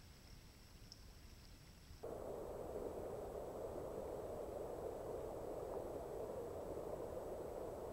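Fast, shallow river water rushing over a rocky riffle: a steady rush that starts abruptly about two seconds in, after faint hiss.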